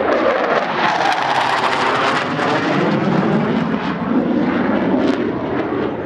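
MiG-29 Fulcrum fighter jet flying past under power, its twin Klimov RD-33 turbofans making a loud, steady jet rush with slow whooshing sweeps that fall and rise in pitch.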